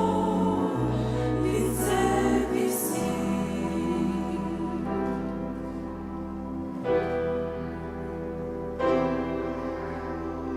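Music from a church choir ensemble: voices and accompaniment holding long, sustained chords.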